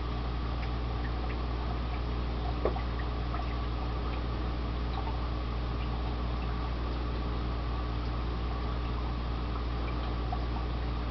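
Aquarium pump running with a steady low hum, water bubbling and trickling in the tank, and a single small click a little under three seconds in.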